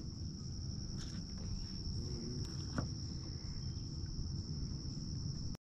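A steady, high-pitched insect chorus, typical of crickets, with a low rumbling noise underneath and a few faint clicks.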